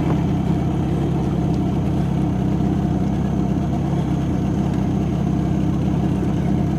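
Boat motor running steadily at low speed, an even low hum.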